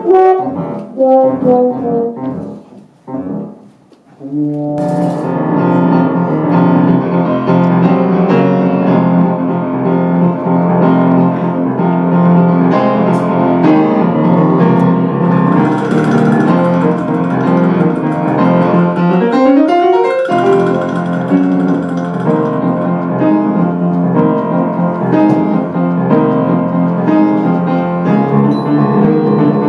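Trombone and piano improvising a live score to a silent cartoon. A few short, separate phrases open it, then from about five seconds in both play steadily, with a rising trombone slide about twenty seconds in.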